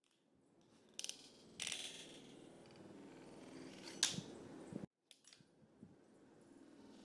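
Fingerboard rolling over a tabletop, its small wheels making a steady rumble, with sharp clacks of the board popping and landing; the loudest clack comes about four seconds in. The sound drops out for a moment just before five seconds, then the rolling resumes.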